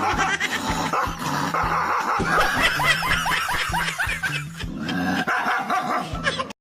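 A dog barking and yipping, with a quick run of short yips about halfway through, over background music.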